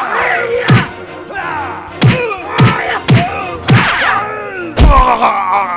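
Background music with a heavy, repeated thumping beat and sliding, bending tones over it.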